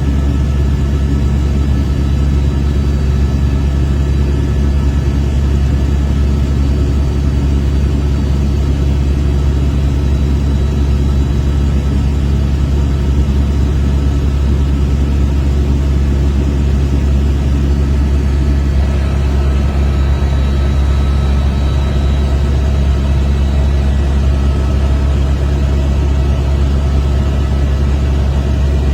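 Helicopter in flight: a steady, loud low drone of rotor and engine that holds unchanged throughout.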